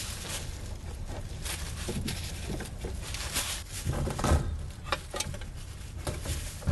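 A rag wiping around the fuel pump's mounting flange: a run of irregular rubbing and scraping swishes with a few small clicks, and a duller knock about four seconds in.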